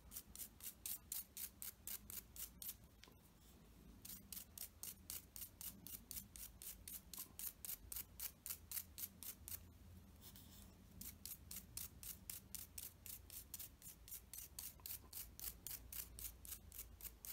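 Toothbrush bristles scrubbed firmly back and forth over a painted plastic model propeller blade, a faint, quick rhythmic scratching of about four to five strokes a second, breaking off briefly about three seconds in and going softer around ten seconds. The scrubbing scuffs the paint to a satin, worn finish.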